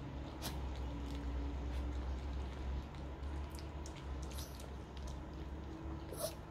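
Chihuahua chewing and gnawing a dog treat, with a few sharp crunches scattered through, over a low steady rumble.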